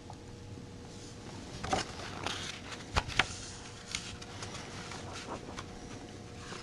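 Handling a picture book: pages rustling and flipping, with a few sharp clicks and taps, the two sharpest close together about three seconds in.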